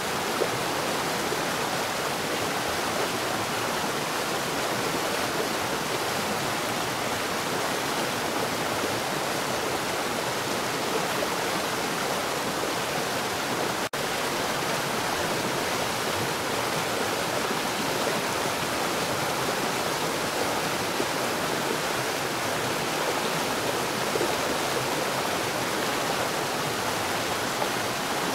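Water falling underground at a rapid rate: a steady, dense rushing noise with no let-up. It breaks for an instant about halfway through.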